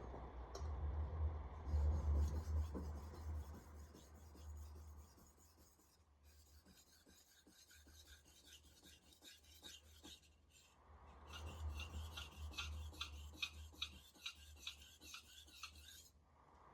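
Steel knife blade scraping back and forth across a wet splash-and-go whetstone in quick, even sharpening strokes, in three runs with short pauses between them. The grinding is raising a burr along the edge.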